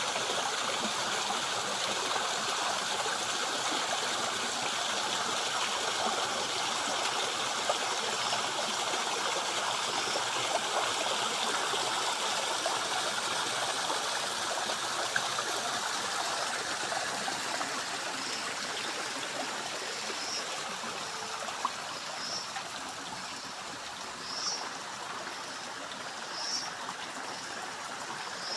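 Forest stream flowing and trickling steadily, swollen after heavy rain. In the second half a short high call repeats about every two seconds.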